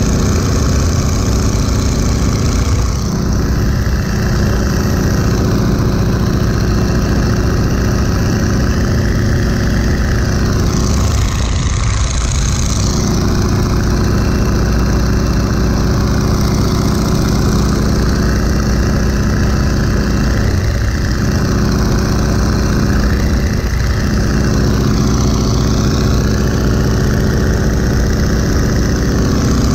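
1941 Boeing Stearman biplane's radial engine running steadily in cruise flight, with propeller and slipstream wind rushing over the open cockpit. The rushing air rises and falls in pitch every few seconds.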